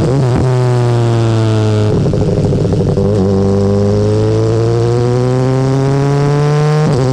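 BMW S1000R inline-four running through its stock Akrapovic exhaust under way. The note falls off-throttle for about two seconds, turns rough briefly, then climbs steadily in pitch under acceleration for about four seconds before dropping sharply near the end.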